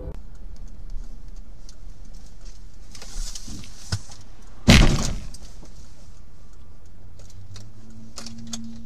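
Steady road and engine rumble inside a moving car, with one sudden loud bang about halfway through, followed by a short rattle: an impact on the car's body. A few light clicks follow later.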